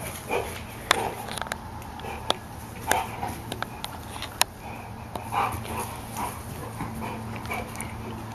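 A dog making short, brief vocal sounds a few times while it plays, among scattered sharp clicks and taps.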